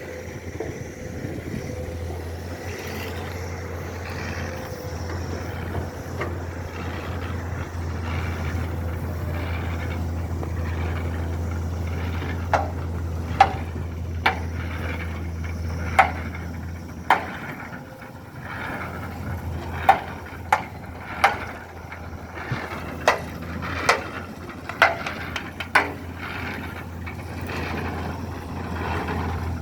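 A heavy diesel machine or truck engine running steadily on a construction site, with about a dozen sharp clanks or knocks coming at irregular intervals from about halfway in.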